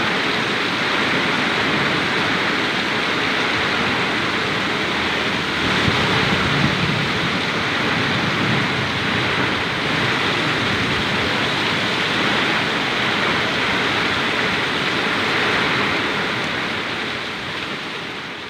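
Heavy rain pouring down in a strong windstorm: a steady, dense hiss that swells briefly about six seconds in and fades out near the end.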